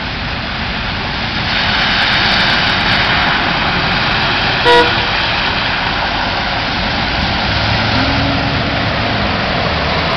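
Heavy rain and cars driving through deep floodwater, tyres sending up a steady rush of spray that grows louder about a second and a half in. A short car-horn toot sounds just under halfway through.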